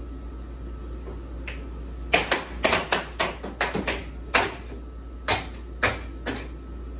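Air hockey puck and mallets clacking in a rally: irregular sharp clacks as the mallets strike the puck and the puck rebounds off the table's rails. The clacks come thick and fast from about two to four seconds in, then more sparsely, over a steady low hum.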